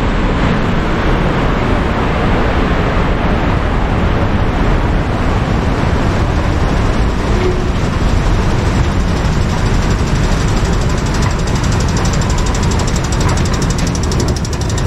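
Steady, loud street traffic noise: a continuous din of road vehicles.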